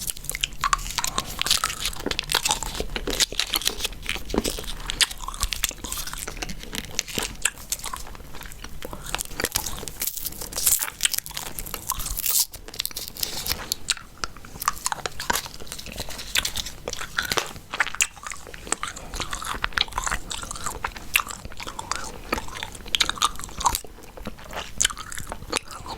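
Gum being chewed close to the microphone: a quick, irregular run of wet clicks and smacks.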